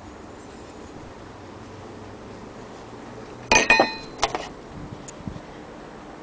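A sharp metallic clink with a brief ringing tone about three and a half seconds in, then a second lighter click and a few faint taps, from handling the metal parts of an antique phonograph.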